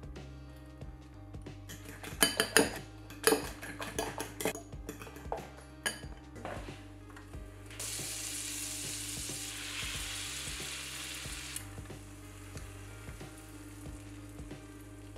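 A utensil clinks rapidly against a glass mixing bowl as the egg mixture is stirred. About eight seconds in, butter sizzles in a hot nonstick frying pan for a few seconds. Soft background music plays throughout.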